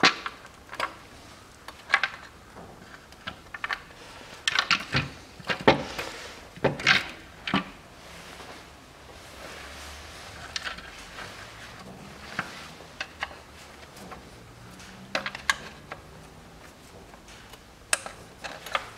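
Scattered clicks, knocks and rattles of hands working a plastic intake manifold loose in the engine bay, with a metal spanner clinking against parts. The knocks are busiest a few seconds in, then come more sparsely.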